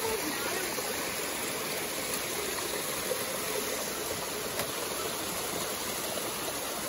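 Steady rush of running water from a mountain stream spilling over rocks.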